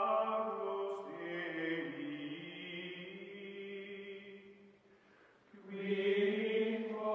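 Slow outro music of long held chords with a choir-like sound, fading almost away about five seconds in and swelling back soon after.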